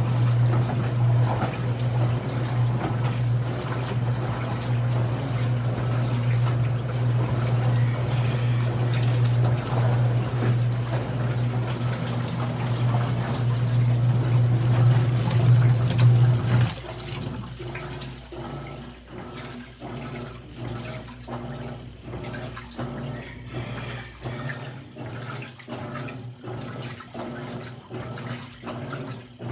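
Washing machine running with water in the tub: a steady motor hum over churning water, until the hum cuts off about 17 seconds in. After that, quieter water sloshing in a quick regular rhythm.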